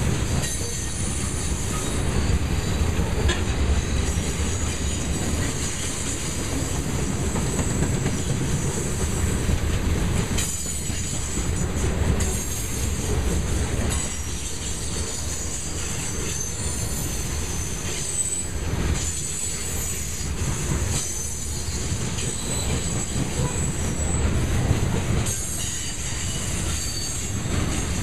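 Grain train's cars rolling past with a steady low rumble, and high-pitched wheel squeal coming and going over it.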